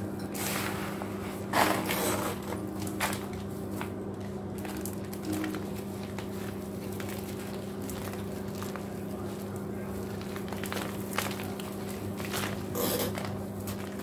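Gloved hands crumbling and sifting dry white cement chunks in a metal bowl: gritty crunching and trickling crackles, with louder crunches near 2 seconds and again near the end, over a steady low hum.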